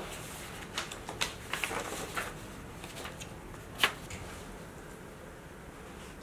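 Paper rustling and flicking as the pages of a manila folder are leafed through, with a few short rustles in the first two seconds and one sharper snap about four seconds in, over faint room tone.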